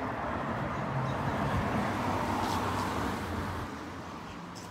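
A car passing on a wet street: a hiss of tyres on wet pavement that swells over the first few seconds and fades away near the end.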